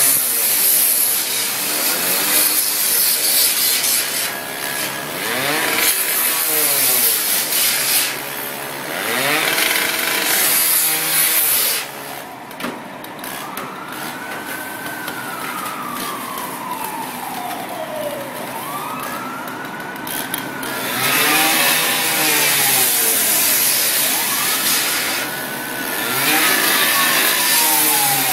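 Fire hose spraying water onto a burning car, a loud hiss that comes and goes in spells as the nozzle works the hot engine bay. In the second half a siren wails slowly up and down three or four times.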